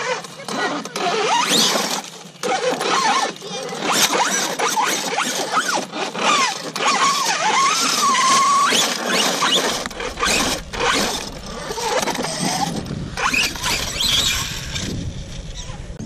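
Losi DBXL-E electric buggy's brushless motor and drivetrain whining in quick bursts, the pitch rising and falling as the throttle is worked while it climbs dirt banks. About ten seconds in, a low rumble joins in.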